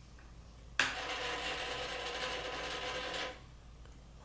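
Wing flap servos of an E-flite Beaver 25e RC plane whining as they drive the flaps down. The sound starts suddenly about a second in, runs steadily for about two and a half seconds and stops.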